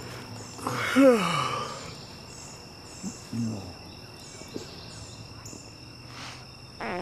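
Woodland ambience with a steady, high insect drone. About a second in, a short, loud sound falls in pitch, followed by a couple of faint low blips.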